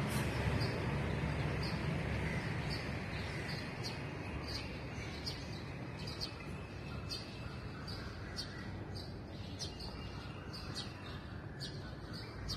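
A bird chirping over and over, a short high chirp about every half second, over a steady background hiss and low rumble that is a little louder in the first couple of seconds.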